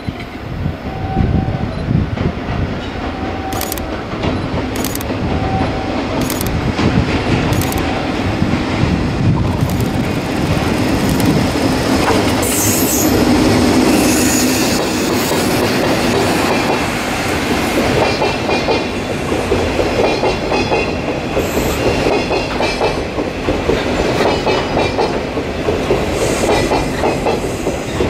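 Works train of chiki flat wagons loaded with rails, hauled by an EF65 electric locomotive, rolling past. The wheels clatter over the rail joints, with sharp clicks in the first half and a steady rhythmic clatter later on.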